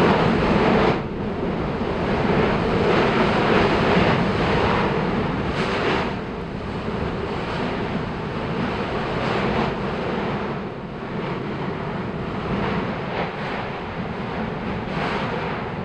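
Strombolian eruption at Yasur volcano, the vent blasting out glowing spatter: a loud, continuous rushing noise. It is loudest in the first second and swells again a few times.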